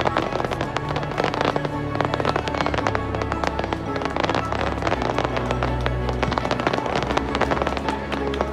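Fireworks going off in a dense, rapid barrage: many small shells popping and crackling almost continuously, with music playing underneath.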